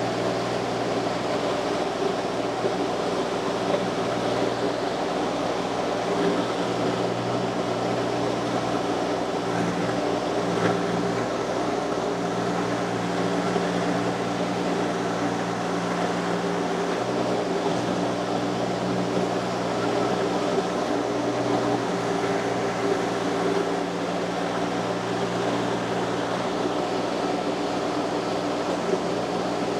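Mini skid steer loader engine running steadily with a constant hum, its note wavering briefly a few times near the middle.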